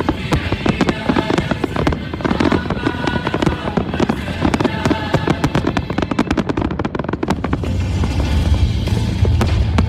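Fireworks display: a dense, continuous barrage of rapid bangs and crackles from many shells going off close together, with a deeper rumble building near the end.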